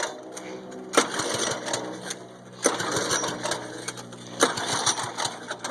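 Small pull-start lawn tractor engine (a 5 hp single) being cranked by its recoil starter: three sharp pulls about a second and a half apart, each followed by a brief turning-over rush. It does not catch, so more priming is needed.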